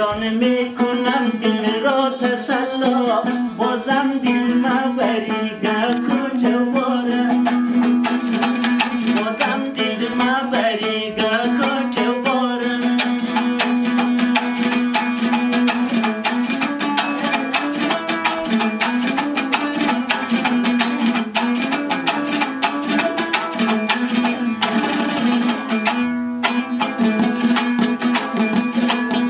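Hazaragi dambura, a two-string long-necked lute, strummed fast and evenly in a folk tune, with a steady low drone note held under the moving melody.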